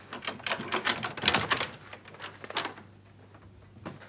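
Rapid, irregular run of sharp clicks and taps, dense for about two and a half seconds, then thinning to a single click near the end.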